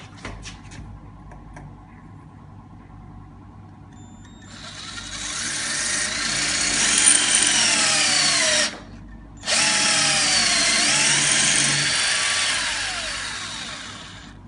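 A 9.6 V cordless drill with a multipurpose tile bit grinding through a glazed ceramic wall tile: a loud, harsh grinding whose pitch sags and recovers as the bit bites. It starts about a third of the way in, stops for about a second midway, then resumes and fades out near the end.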